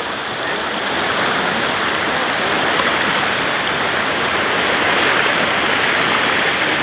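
Fast-flowing stream water rushing and swirling, a steady unbroken rush.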